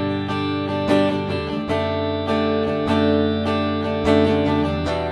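Washburn N4 electric guitar played with a clean tone on both pickups together (the middle selector position), strumming chords at about three strokes a second, each chord ringing on into the next.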